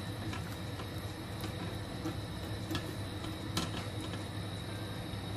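Silicone-tipped tongs stirring thick bolognese sauce in a stainless steel frying pan, giving a few light, irregular clicks and taps against the pan over a steady low hum.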